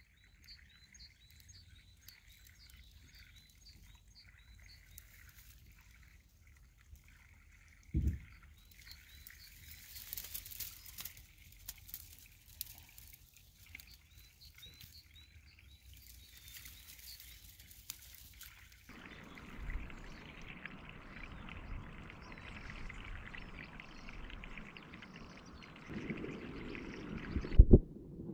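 Outdoor ambience with faint birdsong chirping, a single thump about eight seconds in, and from about two-thirds of the way through a steady rushing noise, with a few louder bumps near the end.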